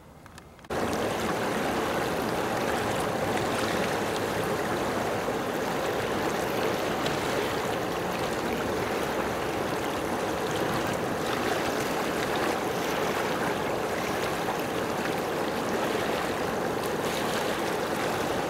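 Steady rush of running water, starting suddenly about a second in.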